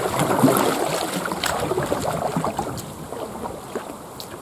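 Paddle strokes splashing and water washing along the hull of a 14 ft Kingfisher sit-on-top kayak as it paddles past, with a few sharp drips and splashes, fading as the kayak moves away.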